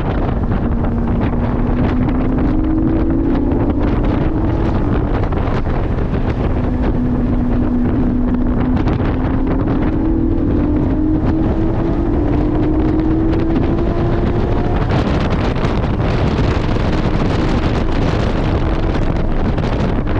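Porsche 718 GT4's flat-six engine pulling hard, heard from inside the cabin: its note climbs slowly, drops back once about six seconds in, climbs again and fades about fifteen seconds in. Steady road rumble and wind buffeting lie underneath.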